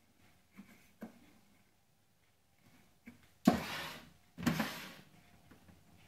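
A plastic toy washing machine scraped and turned on a wooden floor: two short, loud scrapes about a second apart, after a few light plastic clicks.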